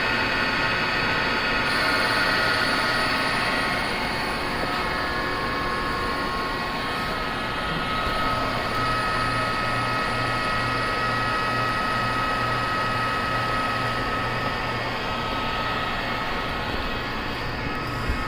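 Metalworking machine tool running steadily: a continuous mechanical whir with several held whining tones and a low pulsing hum.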